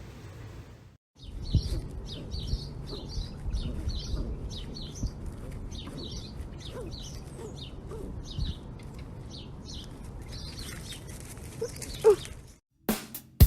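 A small bird chirping over and over, short high calls about one to two a second, over a low background rumble; the calls start about a second in and stop abruptly near the end.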